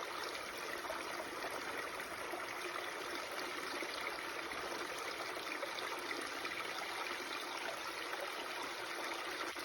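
Babbling stream: water running steadily.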